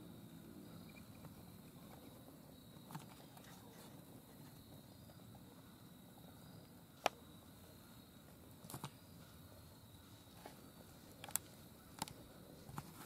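Quiet woods with a faint steady high insect-like tone. Scattered sharp clicks or snaps sound over it, the loudest about seven seconds in, with several more in the last few seconds.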